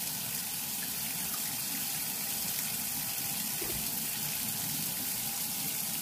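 Water pouring steadily from a cup into the water reservoir of a single-serve coffee maker.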